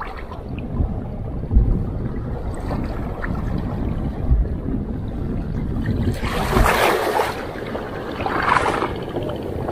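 Wind buffeting the microphone over shallow seawater washing, with two short rushes of splashing water noise in the last few seconds.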